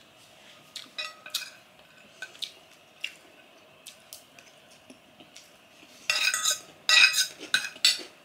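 Metal spoon and fork clinking and scraping on a ceramic plate, with scattered light clicks at first, then a louder run of clinking and scraping from about six seconds in as food is gathered up.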